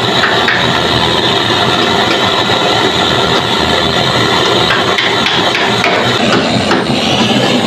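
Hose-fed handheld gas torch burning with a steady, loud hiss as its flame scorches green bamboo, with a few faint clicks.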